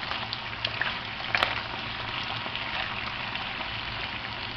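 Seafood frying in olive oil in a pan: a steady sizzle with scattered crackling pops, and one sharper click about a second and a half in.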